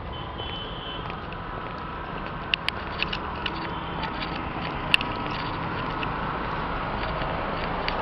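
Road traffic: engine and tyre noise from a car and a scooter, growing steadily louder as they approach. A few sharp clicks come around the middle.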